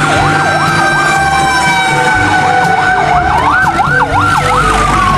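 Fire truck sirens sounding together: a fast yelp sweeping up and down about three times a second, which breaks off for about a second and then returns, over a slower wail that falls and rises again. A low engine hum runs underneath.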